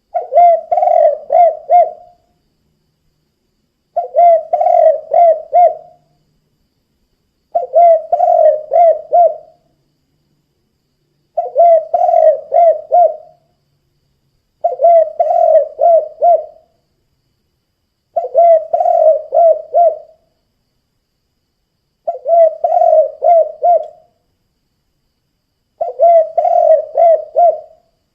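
Spotted dove (tekukur) singing its 'kuk 2' cooing song: eight loud phrases of four or five low coos each, repeated about every three and a half seconds with silent gaps between.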